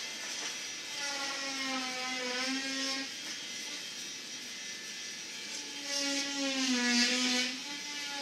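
A small electric motor, such as a power tool's, whirring steadily; its pitch sags slightly a couple of times as if under load, with a rush of hiss during the second dip.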